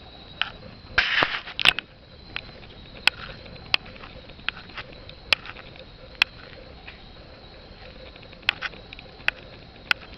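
Wood bonfire crackling, with sharp irregular pops over a faint steady hiss; a dense cluster of loud pops comes about a second in.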